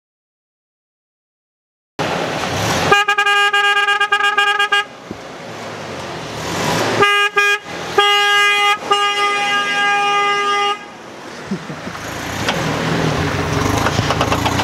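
Toyota Tacoma pickup's horn honking after two seconds of silence: a long stuttering blast, two quick toots, then a long blast. After that the truck pulls away, its engine and tyre noise rising toward the end.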